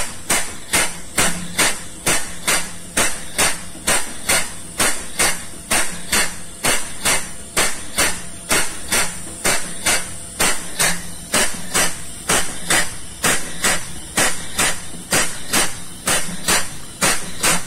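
Air-powered vacuum pump running steadily, each stroke a sharp knock with a hiss of exhaust air, about three strokes a second, as it sucks leftover crude palm oil up out of a cargo tank.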